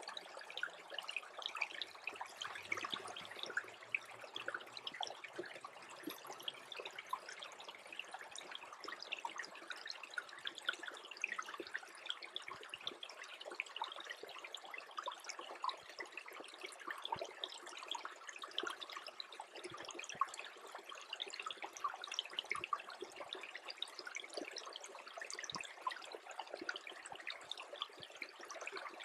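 Small stream trickling as it freezes over: a steady mix of running water and many tiny drips and ticks.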